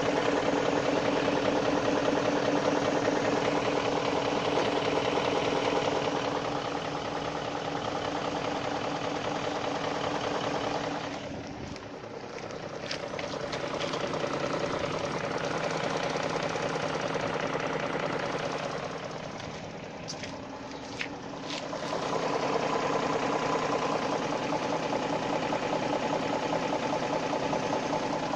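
BMW E53's M62B44TU 4.4-litre V8 running hot, with a rhythmic knock from inside the engine. This is the knock the owner is tracking as it grows ahead of a rebuild. The sound dies down twice and comes back.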